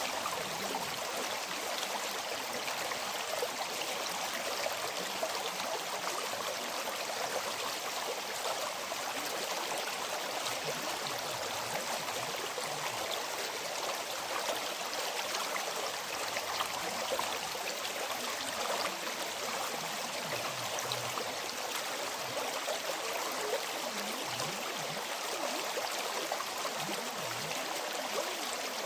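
A river flowing steadily: a continuous rush of water with a hissing, splashing texture and no breaks.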